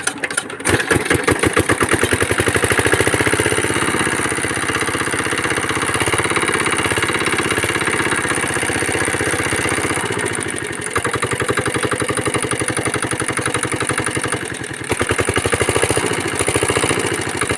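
R170 small single-cylinder diesel engine catching about a second in and then running steadily, its level dipping briefly twice. This is a test run after a repair for heavy oil consumption.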